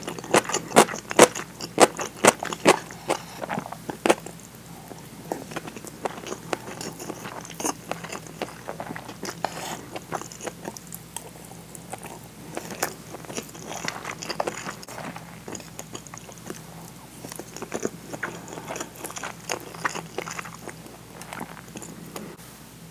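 Close-miked chewing of a mouthful of food: crisp crunching bites about twice a second for the first four seconds, then softer, quieter chewing.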